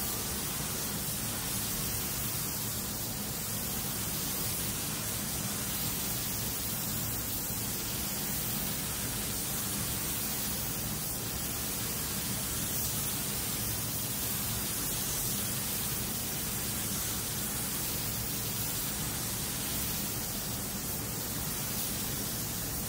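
Steady hiss of compressed air through a gravity-feed spray gun, spraying 2K clear coat in a paint booth.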